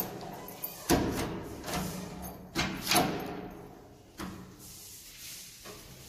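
Several sharp knocks and thuds from a wooden door and its lock hardware, four in all, the loudest about a second in and about three seconds in, over quiet background music.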